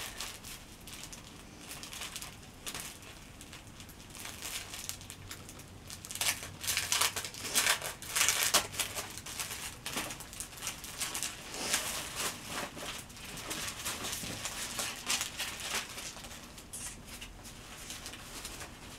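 Wrapping paper rustling and crinkling as it is unrolled, torn and folded by hand, in uneven flurries that are loudest around the middle.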